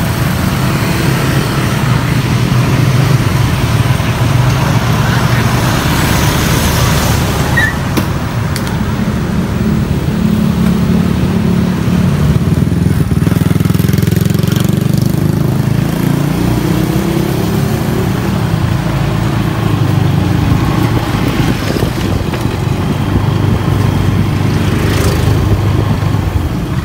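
Motor scooter engine running steadily while being ridden, heard from the rider's seat as a constant low hum under a rush of road and wind noise.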